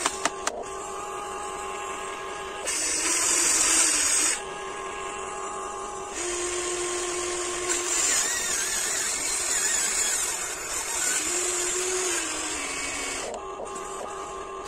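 Huina 1594 RC excavator's small electric motors and gearboxes whirring as the arm and bucket move while digging, over a steady whine. The whirring gets louder in bursts, once about three seconds in and again for a long stretch from about six to thirteen seconds, with a few clicks right at the start.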